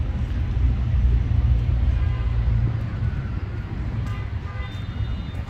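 Wind buffeting the phone's microphone: a low, uneven rumble that eases slightly about halfway through.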